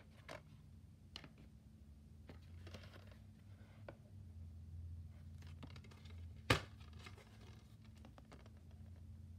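Plastic DVD case being handled and turned over: faint clicks, scratches and rustling, with one sharp knock about six and a half seconds in, over a faint steady low hum.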